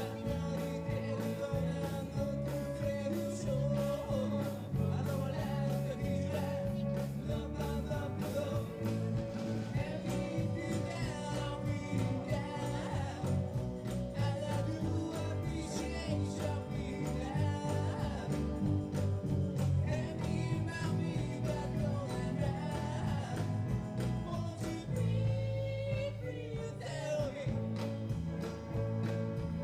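A live band playing a song with a singer, with drums, bass and guitar and a steady beat.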